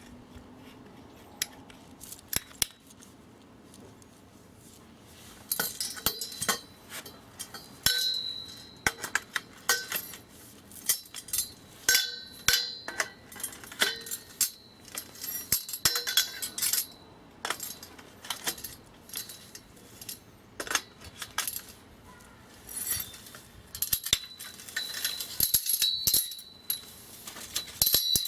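Cutlery clinking against dishes: a few scattered clicks at first, then busy, repeated clinks with a short ringing note from about five seconds in.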